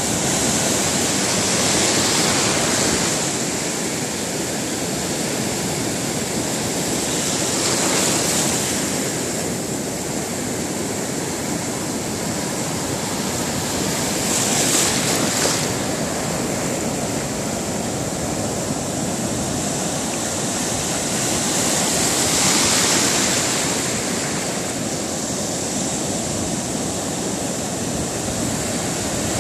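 Ocean surf breaking on a beach: a continuous wash of water with a louder wave crashing in every six to eight seconds.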